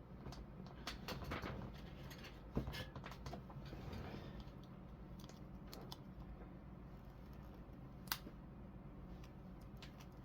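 Faint scraping and small clicks of a tool being run around the inside of an action figure's plastic neck hole to clear leftover bits of molding, with two sharper clicks, one early and one late.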